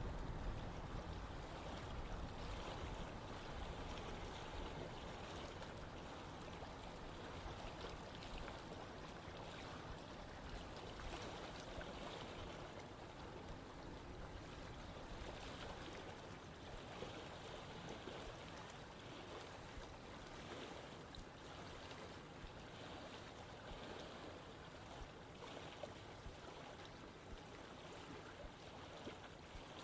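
Steady rush of running water. It is louder with more low rumble at the start, easing down over the first few seconds and then holding even.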